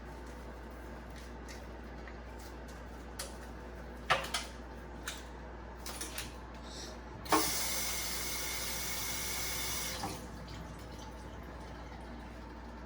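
Several sharp knocks and clatters, then a kitchen faucet turned on and running steadily for about three seconds before it is shut off.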